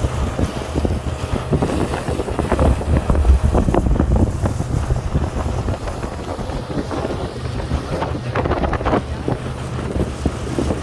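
Wind buffeting the microphone over the steady low hum of a boat's engine underway.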